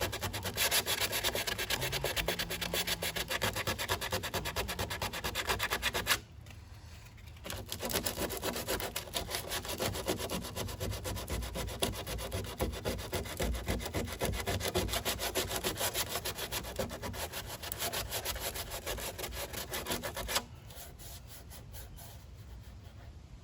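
Sandpaper grating steadily on cured Bondo body filler, knocking down the filler over filled rivet holes. The sanding breaks off for about a second and a half some six seconds in, then resumes and stops a few seconds before the end.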